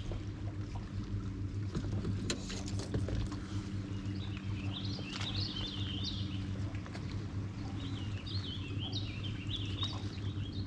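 Boat motor humming steadily, with birds singing in short bursts about halfway through and again near the end.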